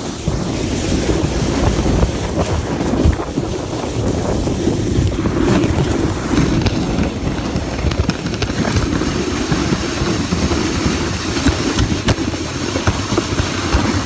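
Loud wind buffeting a phone's microphone, a steady rumbling rush with scattered crackles.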